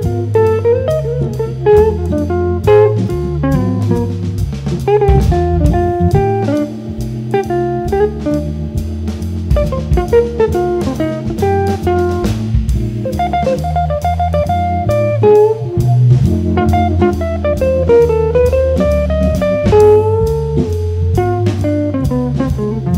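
Jazz organ trio of organ, electric guitar and drum kit playing live: a single-note melody line moves over a low bass line, with steady drumming and cymbal strokes. Partway through, one sustained note is held for several seconds under the melody.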